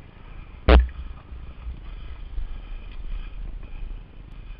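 Ride noise from a Lapierre Spicy 516 enduro mountain bike descending a dirt singletrack, heard from a helmet camera: a steady rough rumble of the bike over the trail mixed with wind on the microphone, and one loud thump about a second in.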